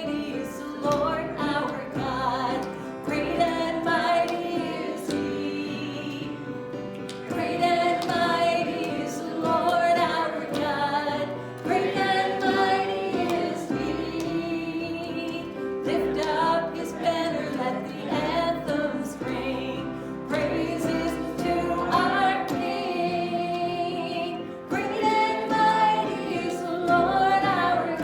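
Worship song sung by a church congregation, with musical accompaniment.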